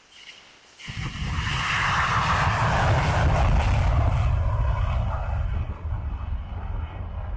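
Fighter jet taking off, a loud jet engine rumble with a rushing hiss that starts suddenly about a second in and eases off gradually after about four seconds as the jet climbs away.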